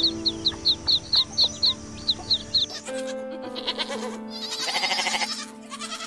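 Chicks peeping, sharp high peeps about four a second, for the first half; then a goat gives a long, wavering bleat. Background music runs underneath.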